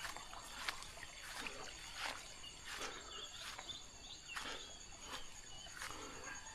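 Footsteps of someone walking at an even pace, roughly one step every three-quarters of a second. Brief bird chirps come in about the middle.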